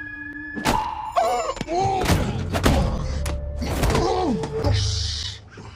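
Film soundtrack: music with a series of heavy thuds and impacts, several in a few seconds, and a short hiss about five seconds in.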